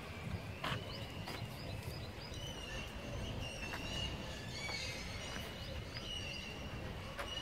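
Small birds chirping and whistling in short high notes throughout, over a steady low background rumble, with a few sharp clicks.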